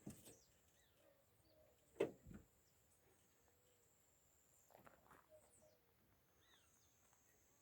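Quiet countryside evening ambience: faint, scattered bird chirps over a steady thin high tone, broken by a few soft knocks, the loudest about two seconds in and a small cluster near five seconds.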